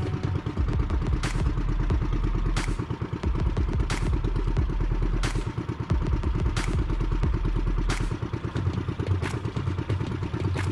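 Small engine of an outrigger bangka running steadily with a fast, even chug. A sharp click recurs about every one and a third seconds.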